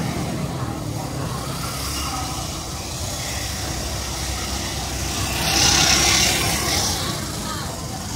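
Steady low rumble of motor traffic. About five and a half seconds in, a louder hiss rises over it for about a second and a half.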